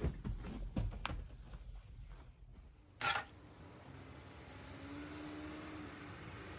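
A few soft knocks and rustles in the first second or so, then a short, sharp burst about three seconds in. After it a faint steady background with a low hum, slowly growing louder near the end.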